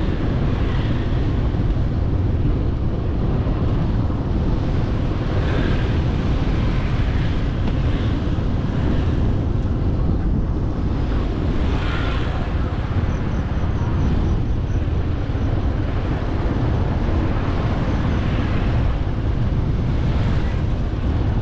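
Wind buffeting the microphone during a ride along a road, over steady road and engine noise, with passing vehicles swelling up briefly a few times.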